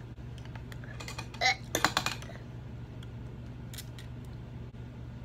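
Mouth noises from sucking a Lemonhead sour hard candy: a brief hum about a second and a half in, then a quick run of wet clicks and smacks. A steady low room hum runs underneath.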